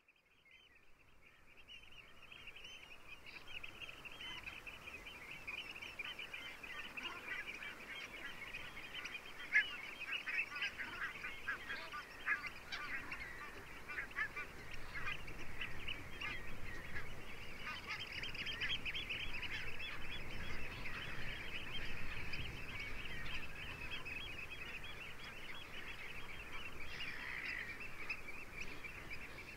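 A large flock of brent geese calling continuously: many overlapping short, throaty calls that fade in over the first few seconds. One brief, louder sound comes about ten seconds in.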